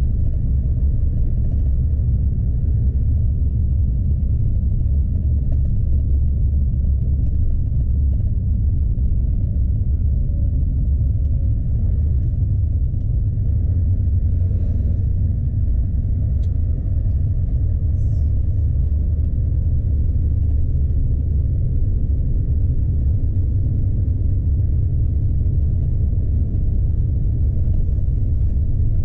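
Steady low rumble of a heavily loaded truck's diesel engine and tyres on a snowy road, heard from inside the cab.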